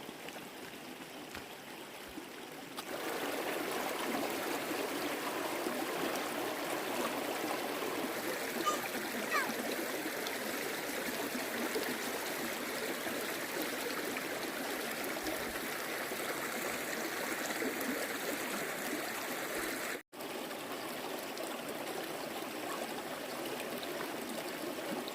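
Steady rush of running water, growing louder about three seconds in.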